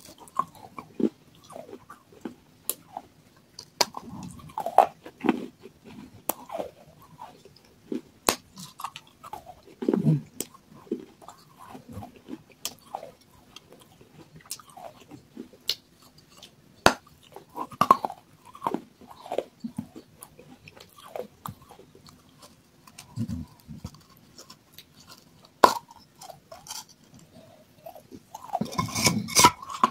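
Water-soaked fired clay pot pieces being bitten and chewed: irregular crisp crunches and clicks with softer chewing between them, and a louder burst of crunching near the end.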